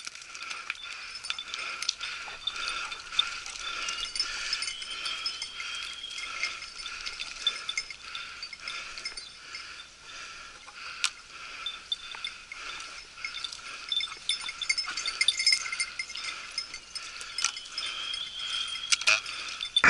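Small metal bells jingling and clinking without a break, several bell tones ringing together. A short rising whistle comes about four seconds in and again near the end.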